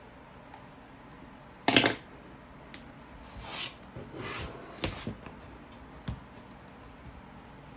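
Handling noises: a sharp clatter about two seconds in, then two brief scraping rustles and a few light knocks.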